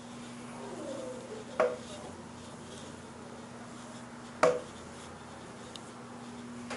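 Blackboard eraser wiping a chalkboard, with two sharp knocks about three seconds apart, over a steady low hum.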